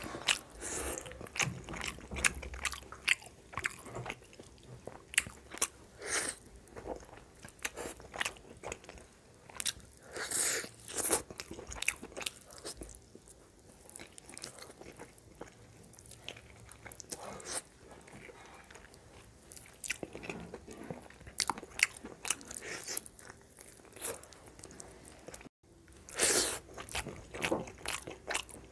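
Close-up eating sounds: crunchy bites and chewing, in irregular bursts of sharp crackles, busiest about ten seconds in and again near the end.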